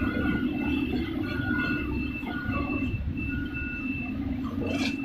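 Fried-snack production line machinery running with a steady hum, a thin high whine that comes and goes, and a brief clatter near the end.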